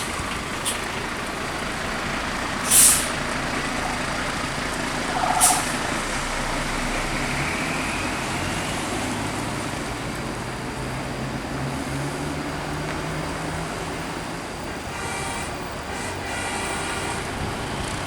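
Heavy vehicle's engine running and pulling away on the climb, its note rising a little in the middle, with three short, loud air-brake hisses in the first six seconds.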